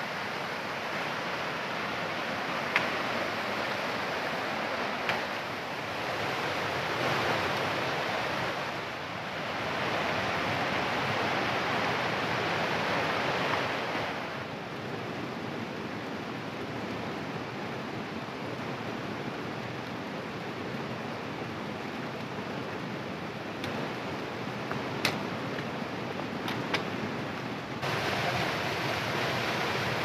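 Steady rush of a fast-flowing mountain river running over rocks, with a few sharp clicks near the start and near the end.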